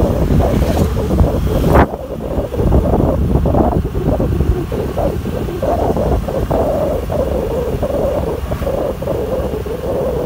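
Wind buffeting the microphone of a moving Honda Activa 5G scooter, a heavy rumble with road and engine noise underneath. The loudest, hissiest wind drops away suddenly about two seconds in, then the rumble carries on steadily.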